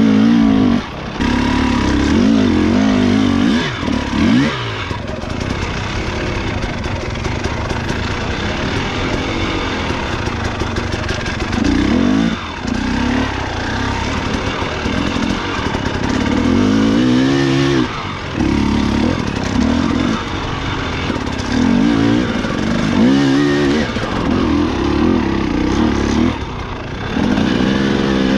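Enduro motorcycle engine being ridden hard, revving up and dropping back again and again in short bursts of throttle.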